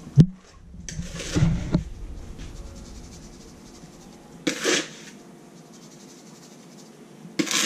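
A spoon scooping dry brine of brown sugar and salt from a plastic bowl and scattering it over fish fillets in a roasting pan: a sharp click just after the start, then three short scraping, rustling bursts, the last near the end.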